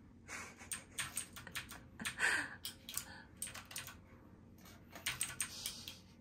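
A rapid, irregular run of sharp clicks and taps, thinning out after about four seconds, with a short falling tone about two seconds in.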